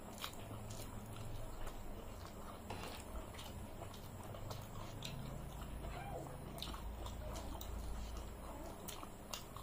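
Two people eating rice and chicken with their hands: soft chewing and mouth smacks with scattered small clicks, over a low rumble.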